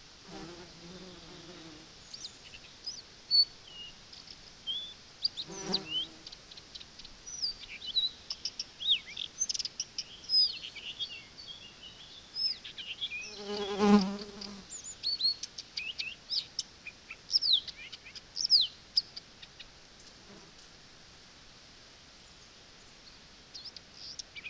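Many short, high chirping and whistling calls, sliding up and down, most likely from small birds. A brief low call about fourteen seconds in is the loudest sound, with a fainter low call near the start.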